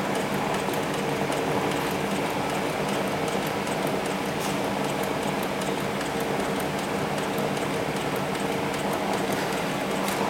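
Hightex 7273BV walking-foot industrial sewing machine, driven through a speed reducer for extra torque, running steadily while it stitches thick 40 mm webbing: a continuous mechanical running sound with a steady hum beneath it.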